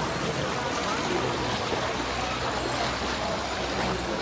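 Steady rushing of heavy rain and running water on a flooded street.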